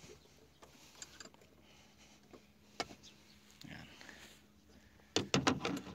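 Hand work on a truck's brake master cylinder, tightening its mounting nuts and taking off the plastic reservoir lid: faint scattered clicks and scrapes of metal and plastic, then a quick run of sharp, louder clicks near the end.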